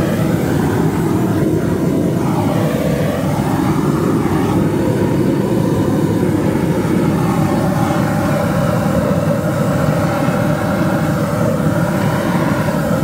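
Propane roofing torch burning steadily and loudly as it heats and softens a torch-down modified bitumen membrane.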